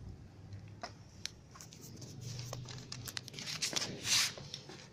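Sharp plastic clicks and knocks as a stroller's swivel front-wheel assembly is handled and fitted onto the leg, with a brief, louder rustling scrape about four seconds in.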